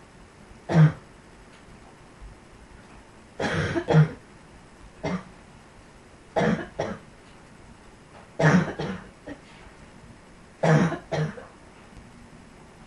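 A person's barking chest cough: six bouts of one or two coughs each, a second or two apart.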